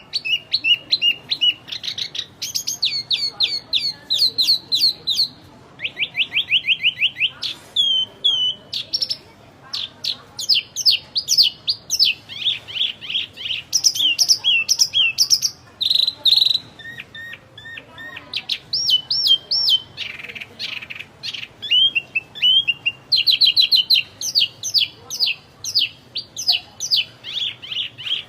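Wambi songbird singing nonstop in a long, varied run of fast chirps, trills and repeated whistled notes, changing phrase every second or two.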